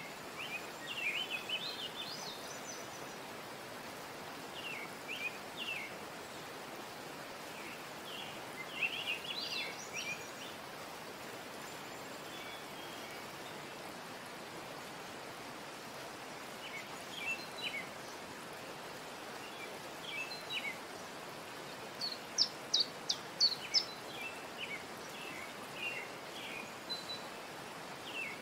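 Birds chirping in short phrases of quick high notes every few seconds over a steady, even hiss. About 22 seconds in comes a run of five or six sharper, louder chirps.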